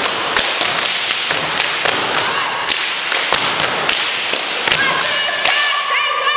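Step dance team stomping and clapping in unison, a sharp percussive beat at about three strikes a second, with voices calling out near the end.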